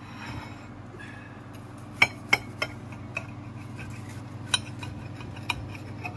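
Table knife cutting a toasted grilled cheese sandwich on a ceramic plate, the blade clinking against the plate about five times, the loudest about two seconds in. A steady low hum runs underneath.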